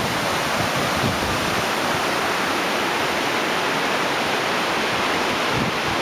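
Water of the Charles River pouring over the South Natick waterfall, a steady rushing of falling and foaming water.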